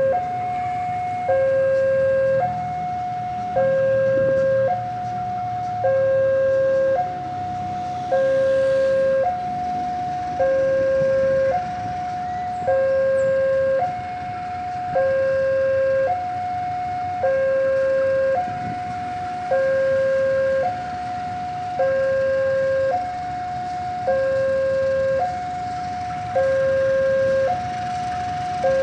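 Railway level-crossing warning alarm sounding a steady hi-lo two-tone, switching between a higher and a lower tone about once a second, the higher tone louder. It warns that a train is approaching the crossing.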